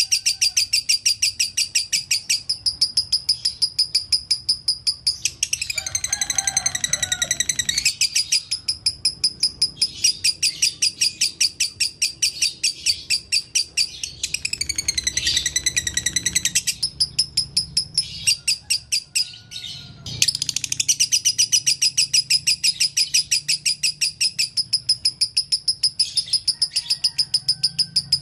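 Lovebird singing a long, fast chatter of sharp, high chirps, about five a second, in the unbroken 'konslet' style that lovebird keepers prize. The chatter is broken twice by a warbling phrase, about six and fifteen seconds in, and pauses briefly near twenty seconds.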